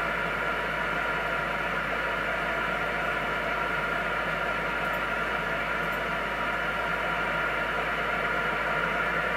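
Galaxy DX 959 CB radio's speaker giving out a steady hiss of band static on channel 28, with no station coming through.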